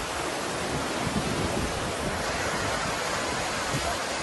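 Steady rushing roar of a flooded, muddy river pouring over a low weir, with gusty wind on the microphone.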